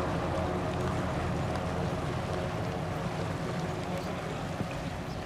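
Single Pratt & Whitney PT6A turboprop engine and propeller of a Pilatus PC-12/47E running: a steady hum with several held tones, slowly fading.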